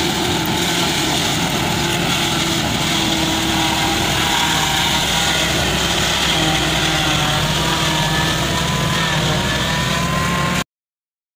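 Engine of a tracked grass cutting-chopping-blowing machine running steadily, its pitch creeping up a little near the end before the sound cuts off abruptly.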